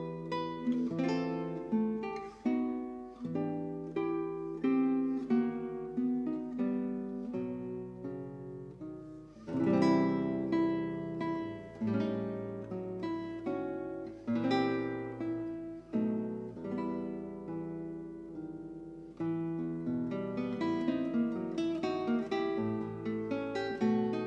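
Background music on solo acoustic guitar: plucked notes and chords that ring and fade, shifting from chord to chord.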